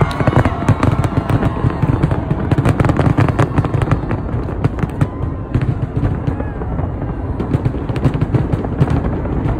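Rooftop fireworks display going off in rapid volleys of sharp bangs, thickest in the first few seconds and thinning out toward the end, over a steady low rumble.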